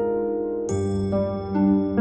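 Slow, gentle instrumental background music with sustained keyboard notes. A new chord with a bright, bell-like ring is struck about two-thirds of a second in, and another note comes in near the end.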